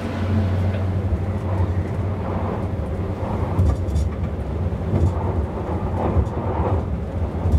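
Steady low rumble of an SBB ICN tilting train (RABDe 500) running along the line, heard inside the driver's cab.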